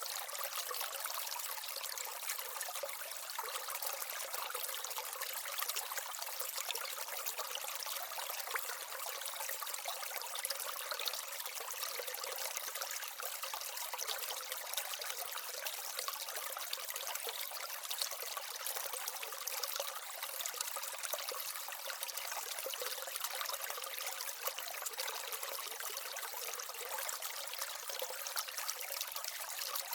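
Small aquaterrarium waterfall and stream, water trickling and splashing steadily.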